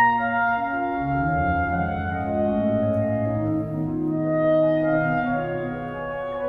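Clarinet and pipe organ playing a slow contemporary piece together in long held notes. About a second in, the organ's lower notes begin to move under the sustained upper tones.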